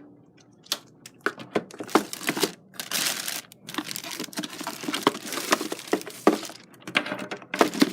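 A keyboard and its packaging being handled and set down: irregular clicks and knocks with bouts of crinkling and rustling.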